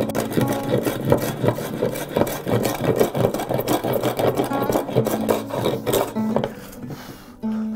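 Metal hand plane taking quick, repeated strokes across a glued-up wooden bench slab, shaving down high spots and dried glue; the strokes stop near the end.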